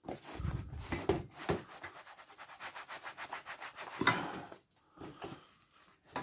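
Black shoe polish being rubbed and buffed into a Raleigh Chopper seat with a cloth, in rapid back-and-forth scuffing strokes, with one louder scuff about four seconds in.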